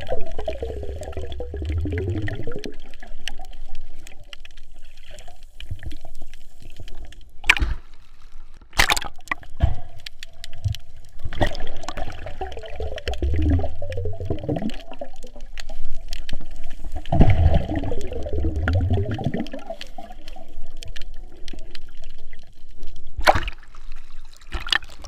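Muffled underwater gurgling and sloshing of water in three spells of a couple of seconds each, with a few sharp knocks in between.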